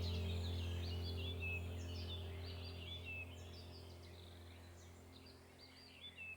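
Soft ambient background music with a steady low drone and birdsong chirping over it, slowly fading out.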